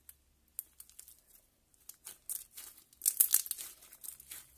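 Glossy glitter slime being stretched and squeezed by hand, giving off sharp wet clicks and crackles; sparse at first, then much denser and louder from about three seconds in.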